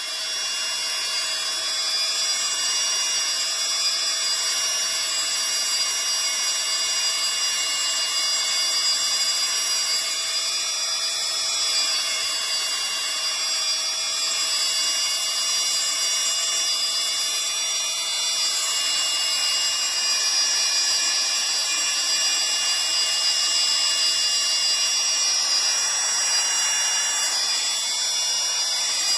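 Handheld electric paint spray gun running steadily with a high-pitched motor whine, spraying a first coat of red oxide primer thinned with petrol.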